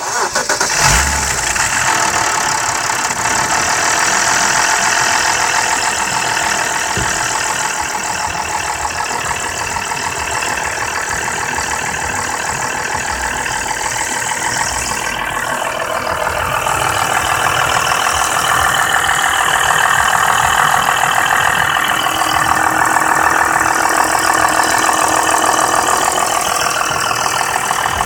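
BMW F10 523i engine running with a fast metallic rattle from the VANOS area, getting somewhat louder in the second half. The owner suspects the noise began after the VANOS bolts were replaced.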